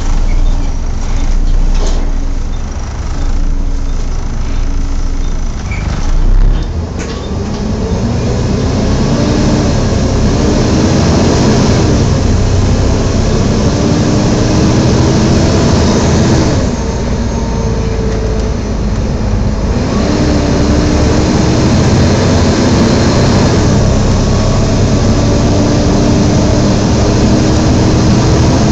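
Cabin sound on a Volvo B7TL double-decker bus: the diesel engine pulling hard, its note rising and dropping back several times as it changes up through the gears. Under it runs the loud, hoover-like roar of the engine cooling fan. In the first seven seconds there are a few knocks and rattles.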